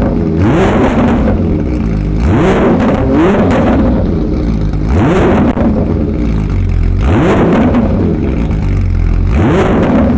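Porsche 992 GT3's 4.0-litre flat-six revved through a Soul Performance Competition valved exhaust, about five throttle blips, each rising sharply in pitch and falling back to idle.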